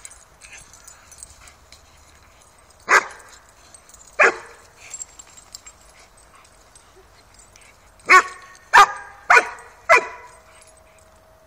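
Dog play-barking: two single barks a little over a second apart, then a quick run of four barks about half a second apart.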